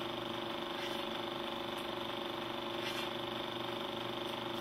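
Old film projector sound effect: a steady mechanical whirr over hiss, with occasional faint crackles.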